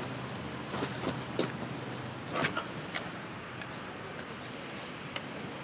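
Low outdoor background with scattered knocks and clicks as a chainsaw is handled and set against a log; the saw is not running. Two short high chirps sound in the middle.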